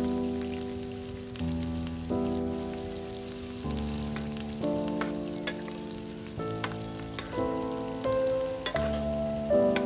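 Food frying in a pan with a crackling sizzle, under background music whose chords change about once a second.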